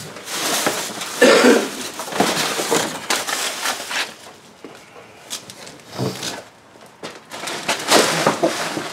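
Trash and packaging rustling and crumpling as it is crammed into a nearly full trash can, in two busy spells with a quieter stretch in the middle.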